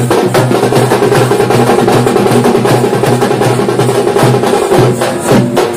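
Dappu frame drums beaten together in a loud, fast, driving rhythm.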